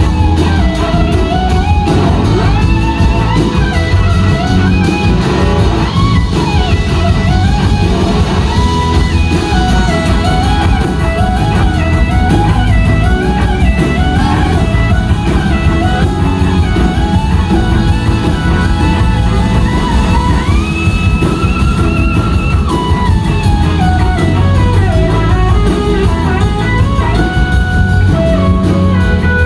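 Live rock band playing: an electric slide guitar solo line, gliding and wavering between notes, over drums and bass, with one long held high note about two-thirds through.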